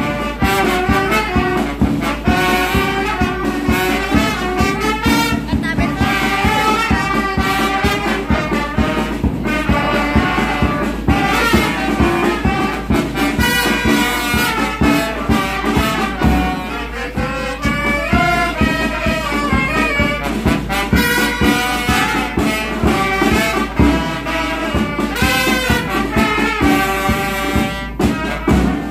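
Small brass band of trumpets, trombone and saxophones playing a Christmas carol in unison over a steady marching bass drum beat.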